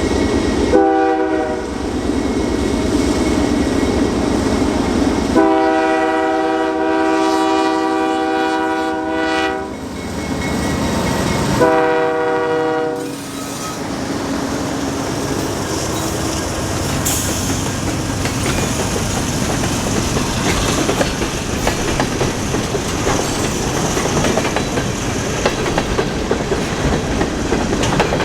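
Diesel freight locomotives' air horn sounding three blasts, a short one, a long one of about four seconds and another short one, over the rumble of the passing locomotives. After that come the freight cars rolling by, with wheels clicking over the rail joints.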